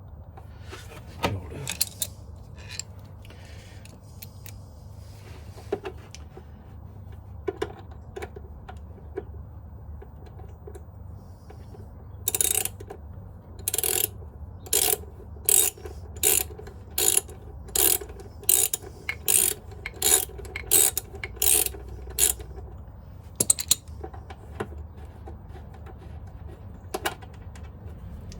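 Socket ratchet wrench working a bolt loose: a few scattered knocks, then a steady run of about a dozen ratcheting strokes, roughly one and a half a second, with the nut behind held by hand.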